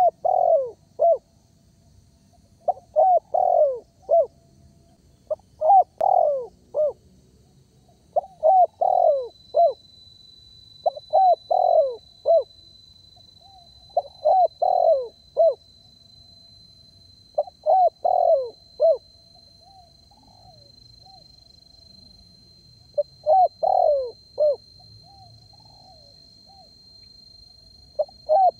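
Spotted dove (tekukur) cooing: about nine phrases of several quick coos, each phrase about a second long and repeated every three seconds or so, with a longer pause just past the middle. The bird is in full song.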